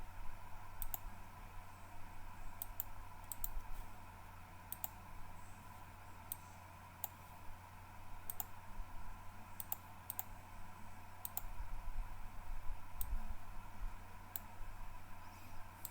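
Sharp, single clicks of a computer mouse and keyboard, spaced irregularly about one a second, over a steady faint electrical hum.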